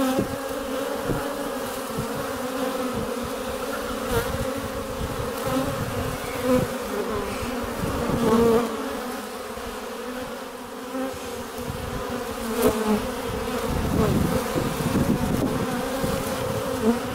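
Honey bees buzzing around an active hive, a steady hum with irregular low rumbling beneath it.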